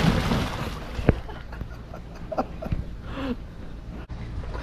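A person jumping into a swimming pool: a splash at the very start that fades over about a second, then quieter water movement with a few short voice sounds.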